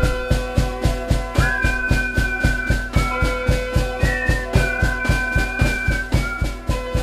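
Instrumental music with a fast, steady drum beat and held melody notes that change every second or so.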